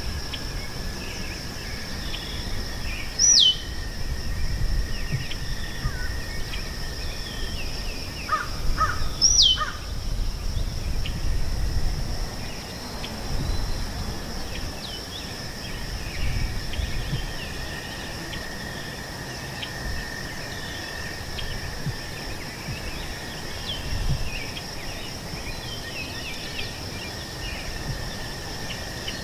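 Meadow birdsong: many small birds chirping, a crow cawing a few times about eight to nine seconds in, and two loud down-slurred whistles about three and nine seconds in. Under it run a steady high-pitched drone and a low rumble.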